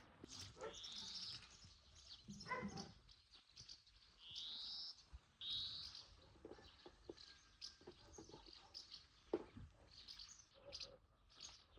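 Small birds chirping in the open air: several short arching chirps, the clearest a little after the start and around four to six seconds in. About two and a half seconds in comes a brief pitched call from another animal, and near the end a single sharp tick.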